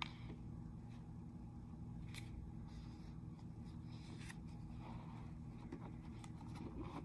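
A picture book's paper page being turned and smoothed by hand: a few soft, faint rustles and taps over a steady low hum.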